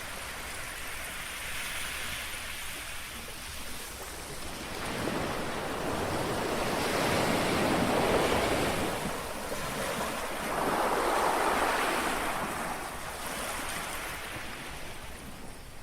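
Small sea waves lapping on a shore, the wash swelling and easing, with two larger swells about a third and two thirds of the way through. A light wind blows on the microphone.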